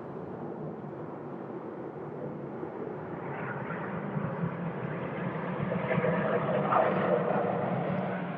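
Jet engine noise from an Airbus A350-1000 with Rolls-Royce Trent XWB engines, rolling out on the runway after landing. It is a steady rush that swells as the aircraft passes, is loudest about seven seconds in, then eases off.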